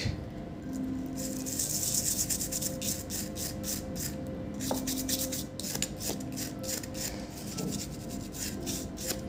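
Cotton swab scrubbing the solder side of a power-supply circuit board in quick back-and-forth strokes, cleaning it after new diodes were soldered in. A dry, scratchy rubbing that is most intense about two seconds in.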